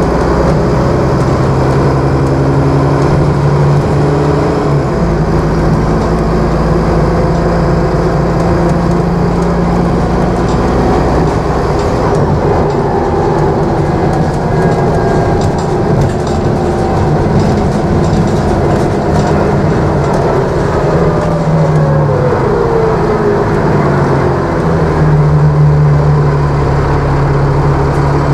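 A Dennis Trident double-decker bus's engine and drivetrain heard from inside the passenger saloon while under way. The engine runs steadily, a whine falls in pitch about two-thirds of the way through, and a strong low engine note returns near the end.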